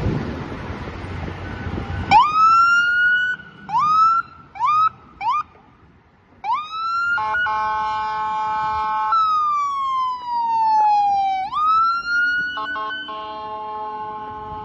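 Ambulance emergency siren starting up: about two seconds in come four short rising whoops, then a slow wail that climbs, holds and falls away. Twice a long steady horn blast cuts in, the second after a couple of quick blips near the end. Before the siren starts, a car drives past.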